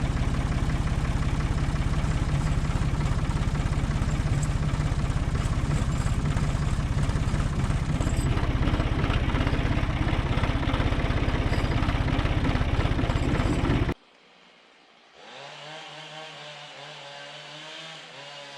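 Tractor engine running steadily under load while plowing a path, close and loud, cut off abruptly about fourteen seconds in. After a brief quiet, an engine is heard again more faintly, its pitch wavering.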